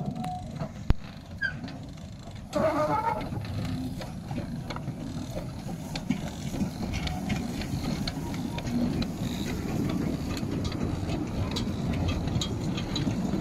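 Small narrow-gauge steam locomotive pulling away with its carriages. A sound starts up suddenly about two and a half seconds in, then a steady rumble of wheels on rail with light clicks grows slowly louder as the train passes.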